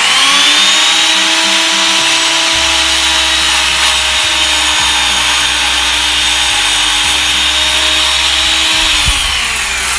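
Electric power saw spinning up and cutting through a piece of 4x4 lumber, running steadily for about nine seconds, then winding down near the end.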